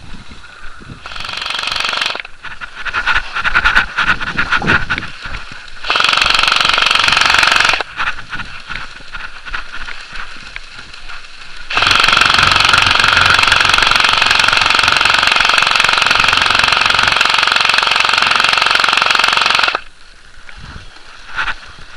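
Airsoft electric guns (AEGs) firing on full auto with a fast mechanical rattle: short bursts about a second in and about six seconds in, with shots between them, then one long burst of about eight seconds from about twelve seconds in.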